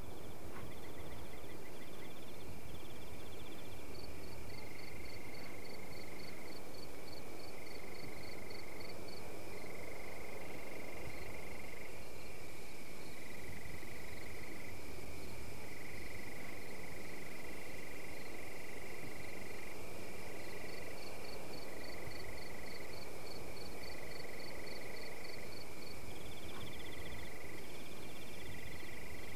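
Steady chorus of calling animals: several high-pitched trills layered together, one of them pulsing about three to four times a second, over a constant hiss.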